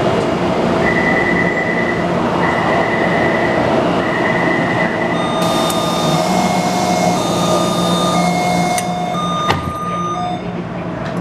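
Taipei Metro C321 refurbished train running, heard inside the car: steady rail and motor noise with a high whine in three pulses, then whines at several different pitches switching about every second, and a sharp click near the end. The whines come from the traction inverter, whose noise the uploader flags as abnormal.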